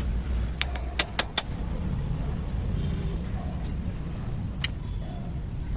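Sharp metallic clinks of tools or parts being handled: a quick run of about five, then one more near the end, over a steady low rumble.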